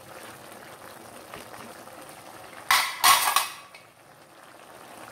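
Steel cookware clattering: a short metal-on-metal clash and then a longer scraping clatter, close together near the middle, against a faint steady bubbling of the soup simmering in the pot.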